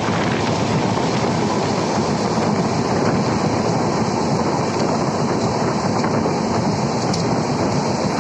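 A train running through a station at full speed without stopping, giving a loud, steady rush of rail noise.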